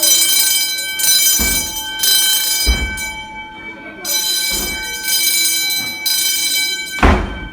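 Fire alarm horn sounding a buzzing tone in a repeating pattern of three pulses then a pause: the evacuation signal. Several dull thumps break in, the loudest about seven seconds in.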